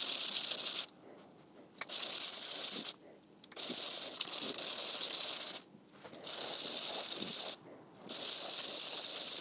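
An aluminum-filled epoxy mold block is rubbed flat on sandpaper over a granite plate, making a gritty rasping hiss. There are five strokes of one to two seconds each, with short pauses between them. The sanding is to get the mold face flat again after it warped.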